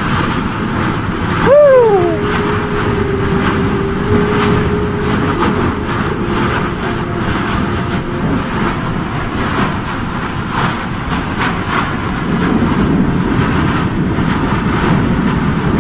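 Kilauea lava fissure fountaining with a steady roar and many small crackling bursts. About a second and a half in, a short pitched call rises and falls, followed by a faint steady tone for several seconds.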